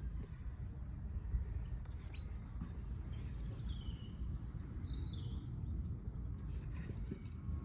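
A few short bird chirps in the middle, over a steady low rumble of background noise, with a few faint ticks.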